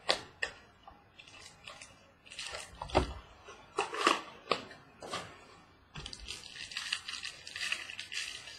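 Trading-card mini box being opened and its wrapped pack handled: short bursts of crinkling and tearing, then steady crinkling of the pack wrapper from about six seconds in.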